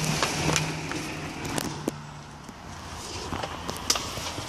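Phone handling noise as the camera is moved around a truck cab: rubbing and rustling with scattered clicks and knocks, over a low steady hum that stops about two and a half seconds in.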